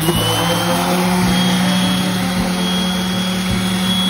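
Small high-speed electric motor running at a steady speed, with a rushing noise and a faint high whine.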